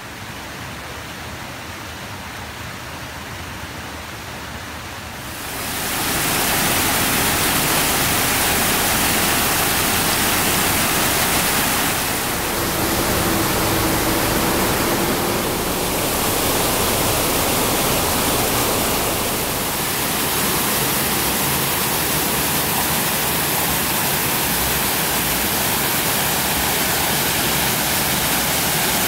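Shallow mountain river rushing steadily over its rocky bed, a continuous even wash of water; it becomes louder about five seconds in.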